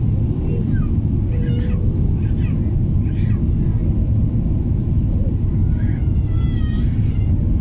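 Steady low cabin rumble of an Airbus A380 moving slowly on the ground, its engines running at low thrust. Brief high-pitched voice-like calls come through now and then.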